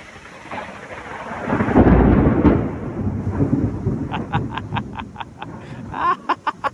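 Thunder rumbling through heavy rain: a loud low rumble swells about two seconds in and fades slowly over the steady hiss of the downpour. Near the end comes a quick run of short high ticks, about five a second.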